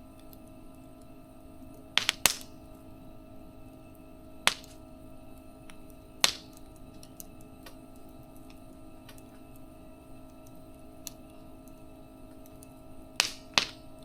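Wood in a campfire crackling with sharp, irregular pops: two close together about two seconds in, single pops a little later, and another pair near the end, over a faint steady hum.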